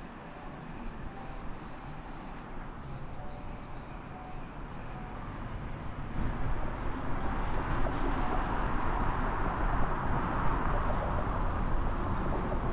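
Traffic and road noise heard from a car driving through city streets, with a repeated high chirping about twice a second in the first half. About six seconds in the noise rises sharply and stays loud.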